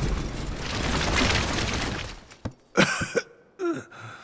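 A swelling rush of noise that dies away about two seconds in, followed by an elderly man's short, strained gasps and grunts as he struggles to move.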